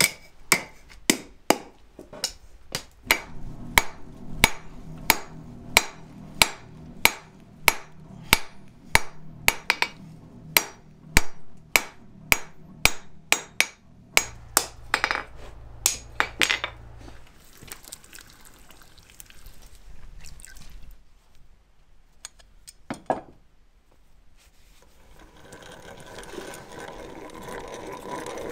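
Blacksmith's hammer striking hot 3/8-inch round mild steel on an anvil, a steady run of ringing blows about two a second, then a few single blows with pauses between. Near the end a hand-cranked drill starts turning.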